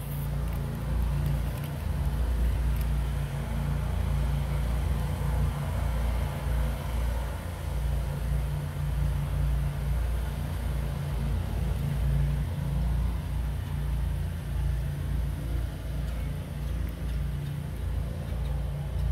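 A steady low rumble that wavers unevenly in loudness, with no distinct event standing out.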